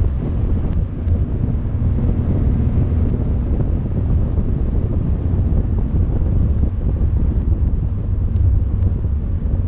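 Wind buffeting the microphone of a camera mounted at the rear of a moving kit car, over a steady low rumble of the car's running gear and road noise.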